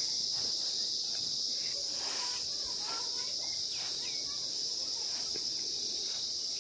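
Insects chirring in a steady high drone, with soft rustling of dry paddy grain being scooped up by hand from a tarp.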